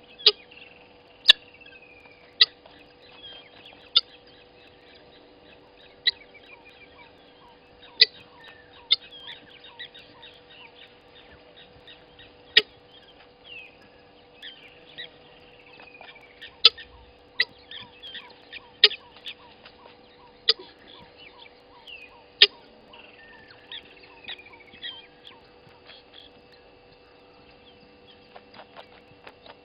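Wild birds chirping and calling over a faint steady hum, broken by loud sharp clicks every second or two.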